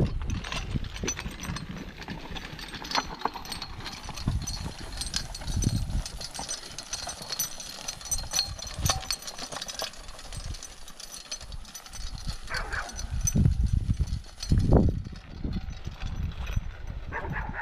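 A horse in driving harness walking while dragging a wooden board over grass and dirt: uneven hoof falls, the board scraping and knocking, and harness hardware clinking. Heavy low thumps, loudest a little after the middle, sit under it.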